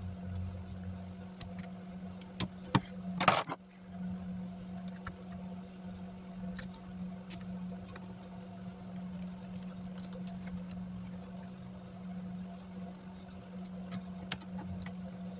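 Scattered small clicks and handling noises, as of laptop parts being worked on, over a steady low hum, with one louder scraping rustle about three seconds in.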